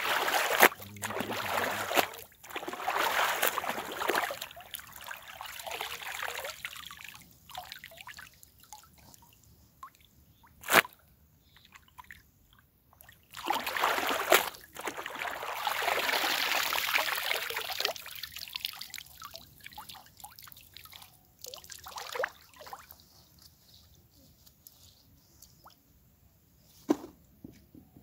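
A wet cloth dunked, swished and lifted in shallow pond water while clothes are rinsed by hand: sloshing and splashing with dripping and trickling water, in two main bouts, the first in the opening few seconds and the second from about 13 to 18 seconds in. A single sharp knock sounds about eleven seconds in.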